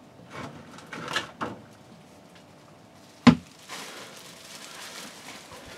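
Thin plastic rubbish bag rustling and crinkling as it is handled and shaken out, with one sharp knock a little past halfway.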